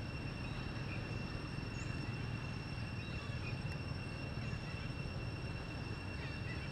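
Insects buzzing in one steady high-pitched drone, over a low outdoor rumble.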